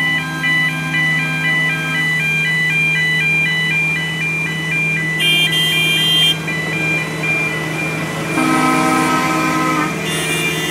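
Level crossing warning alarm sounding its alternating two-tone yelp, about two cycles a second, over the steady drone of a diesel locomotive's engine. A locomotive horn sounds a held chord in the first two seconds and again about eight seconds in, with a short high-pitched blast about five seconds in.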